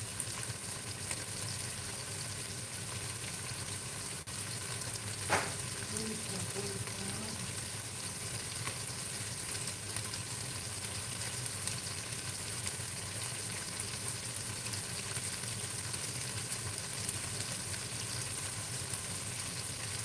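Marinated chicken wings frying in hot oil, a steady sizzle throughout, with one sharp knock about five seconds in.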